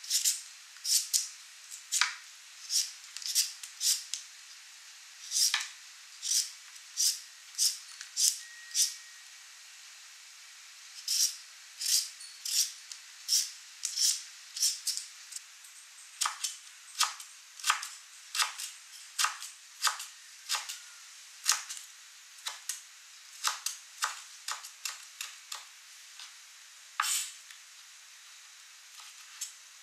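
A vegetable peeler scraping ribbons off a raw carrot, one stroke after another, in runs of about one or two strokes a second with a short pause midway. In the second half, shorter, sharper strokes of a knife cutting the carrot ribbons against a wooden cutting board.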